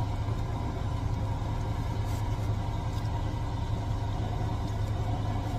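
A van's engine idling, heard inside the cabin as a steady low hum.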